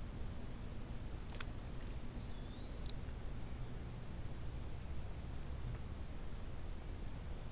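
Outdoor lakeside ambience: a steady hiss with a low rumble, a faint click about a second and a half in, and a few brief, faint high chirps from birds.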